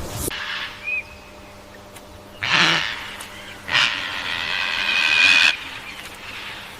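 Animal calls: a short call, then about a second later a longer rough call lasting nearly two seconds, with a faint brief chirp near the start.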